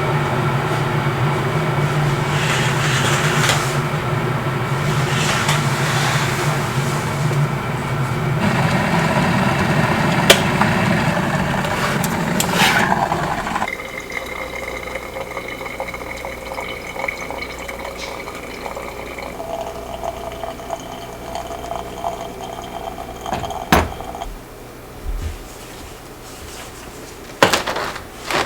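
Water running and filling a container, a steady rush over a low hum that stops about thirteen seconds in. After that it is quieter, with a faint whine and a few sharp clicks or knocks near the end.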